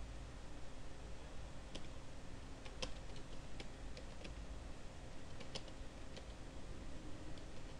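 Computer keyboard keys clicking in scattered single strokes and short runs, about a dozen in all, over a steady low background hum.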